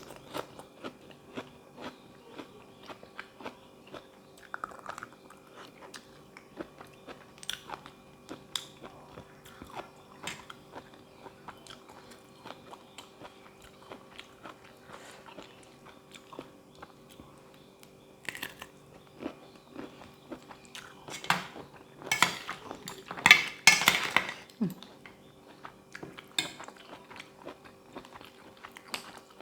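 Close-up chewing and crunching while eating a spicy seafood salad with raw vegetables, with many short crisp bites and a louder run of crunching about three-quarters of the way through, over a faint steady hum.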